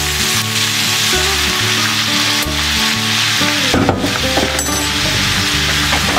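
Cauliflower, potato and bell pepper sizzling steadily as they fry in oil in a skillet, soy sauce just added; a spatula starts stirring them at the end. Soft background music plays underneath.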